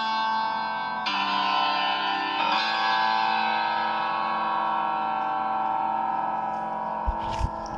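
Background instrumental music of sustained, ringing notes, with new notes entering about a second in and again at about two and a half seconds.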